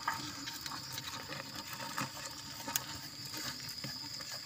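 Red palm weevils crawling over one another in a plastic container: faint scratching and scattered light ticks, with a few sharper clicks, over a steady high-pitched hum and hiss.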